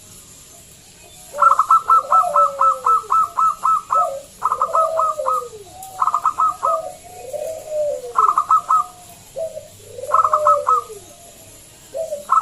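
Zebra dove (local perkutut) singing: after about a second and a half, repeated phrases of quick staccato notes, each followed by lower coos that fall in pitch, coming roughly every two seconds.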